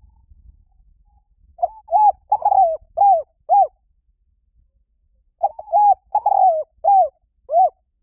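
Spotted dove cooing: two phrases of five low, arched coos, each phrase about two seconds long, the second beginning about five and a half seconds in.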